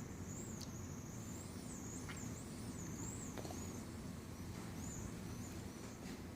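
A bird singing faintly in a continuous high, wavering warble that fades out near the end, over a steady low hum, with a few soft ticks.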